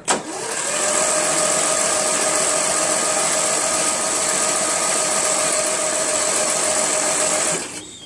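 Lawn tractor's electric starter cranking the engine with the spark plug out and grounded on the cylinder for a spark test, a steady whirring with no compression strokes, cutting off near the end.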